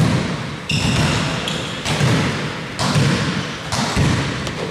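Basketball being dribbled on an indoor court, a bounce about once a second, with short high sneaker squeaks.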